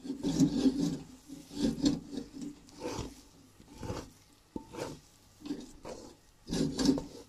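Wooden spatula scraping and pressing a thick milk-powder dough around a karahi, in repeated strokes about one a second, as the mixture comes together into a dough.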